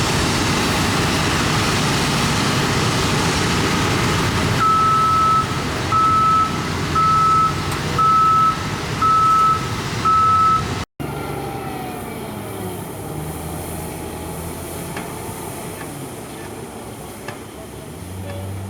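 Heavy diesel construction machine running loudly while its reversing alarm beeps six times, about once a second, at a single high pitch. After an abrupt cut about 11 seconds in, another heavy engine runs more quietly, its pitch sliding up and down.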